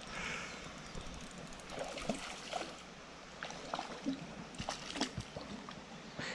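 Small creek's water trickling and sloshing, with scattered light clicks and taps.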